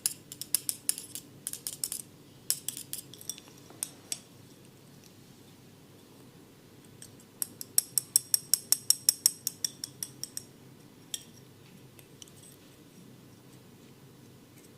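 Barber's steel scissors snipping in quick, ringing metallic clicks. An irregular run fills the first four seconds; after a short pause comes a fast, even run of about seven snips a second for three seconds, then a single click.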